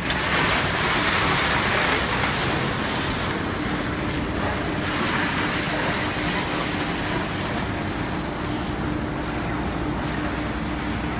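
TDB-1000L blow moulding machine for 1000-litre IBC tanks running: steady machine noise with a hiss that swells twice, and a steady hum that sets in about three and a half seconds in.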